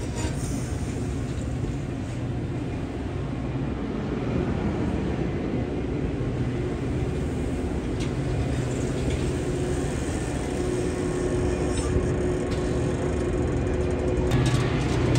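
Metra stainless-steel bilevel gallery passenger cars rolling past at close range: a steady low rumble and hum of wheels on rails, with a few sharp clicks near the middle and end.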